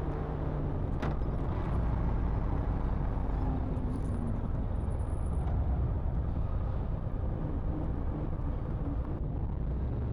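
2014 Victory Vision Tour's 106 cubic-inch V-twin running at low speed, a steady low rumble heard from a microphone inside the rider's helmet, with a single click about a second in.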